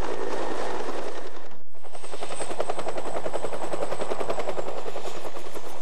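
Twin-engine Bell utility helicopter running on the ground, its rotor giving a steady, even chop under a high turbine whine. The sound drops out briefly about a second and a half in.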